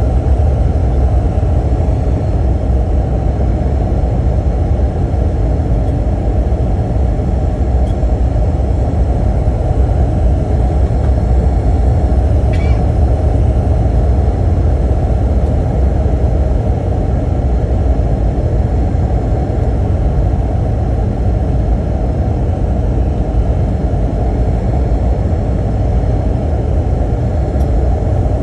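Airbus A321 cabin noise on final approach: a steady low rumble of engines and airflow, heard from inside the cabin with flaps extended.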